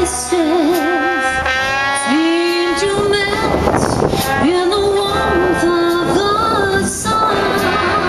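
Big band playing a 1940s swing tune, the saxophones carrying a melody of long notes that scoop up into each pitch, some held with a wavering vibrato, over the rest of the band.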